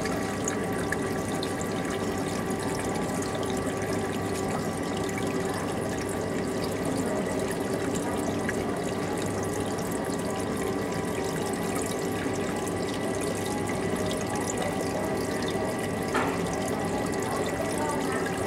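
Reef aquarium water circulating: a steady rush and trickle of moving water under the constant hum of the tank's pumps.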